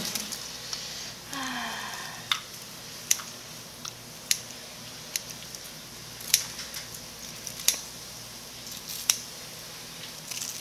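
Kitchen scissors cutting through whole deep-fried squid held in tongs, a series of sharp, crisp snips coming about once every second or so.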